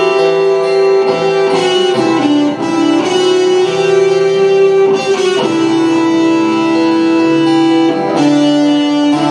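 Electric guitar and acoustic guitar playing a duet: a slow melody of long held notes that change every few seconds, over guitar accompaniment.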